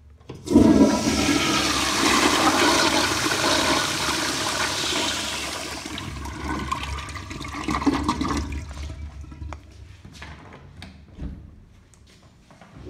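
An American Standard toilet flushing. A sudden loud rush of water starts about half a second in, stays strong for about five seconds, then weakens and trails off.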